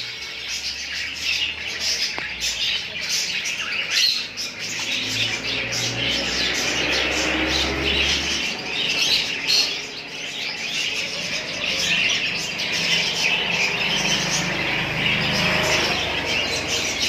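A group of small pet parrots (love birds) chattering and squawking, with many short high calls overlapping continuously.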